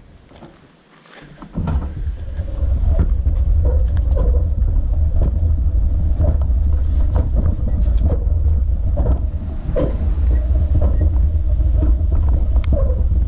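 A wheeled hand cart rolling over a dirt path and grass: a loud low rumble with scattered knocks and rattles, starting about a second and a half in.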